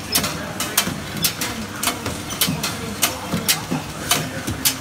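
Belgian endive (witlof) processing machine running, with sharp clacks about three times a second over a steady machine hum.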